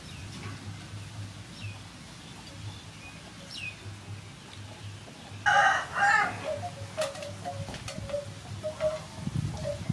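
A rooster crowing once a little past halfway, the loudest sound, with faint bird chirps earlier and short low calls after it.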